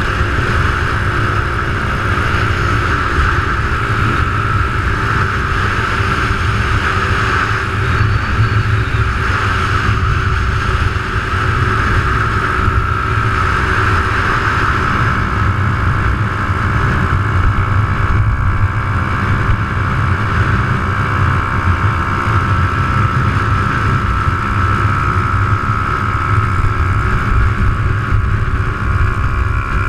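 Small motorcycle engine running steadily at cruising speed, heard from the rider's seat, with heavy wind rumble on the microphone and a steady high whine over it.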